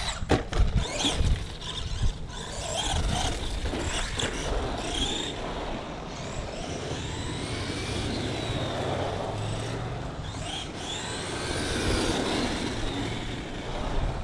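Brushed 550 electric motor and gears of an RC stadium truck whining up and down in pitch as it is driven on asphalt. There are a few sharp knocks in the first second as it lands from a jump.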